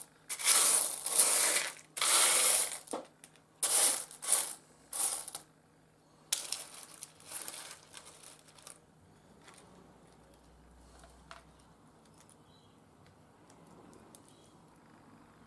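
Small rough seam opal pieces clattering and scraping together as the pile is stirred by hand, in several rattling spells of a second or two each over the first nine seconds.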